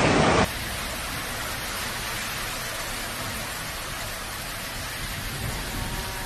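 Heavy rain pouring steadily onto a flooded street, an even hiss. A louder rushing noise cuts off abruptly about half a second in.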